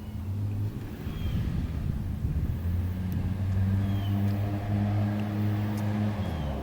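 Polaris RZR 800 side-by-side's twin-cylinder engine running under way, its note climbing and louder from about a second in, then dropping near the end.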